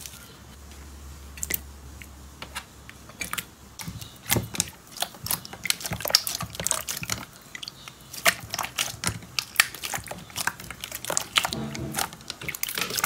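Clear jelly slime being squeezed and kneaded by hand in a glass dish, giving a run of irregular sticky clicks and pops that come thicker from about four seconds in.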